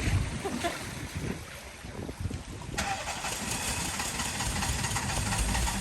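A vehicle's engine running at low revs through floodwater, joined suddenly about three seconds in by a steady hiss of water or wind noise.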